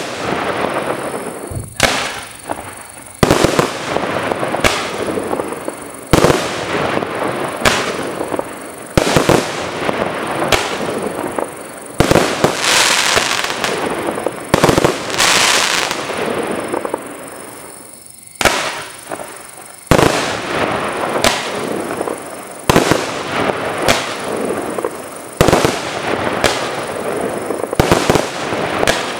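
Consumer firework cakes (multi-shot batteries) firing in sequence: sharp bangs roughly every second or so, with a fizzing, crackling wash between them that is loudest around the middle, and a short lull about two-thirds of the way through.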